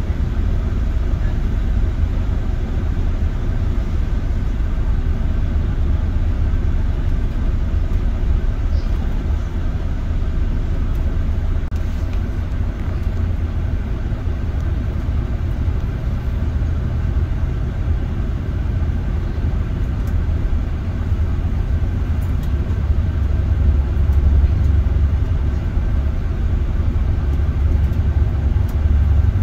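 City bus heard from inside the passenger cabin while driving: a steady low rumble of engine and road noise that swells slightly near the end.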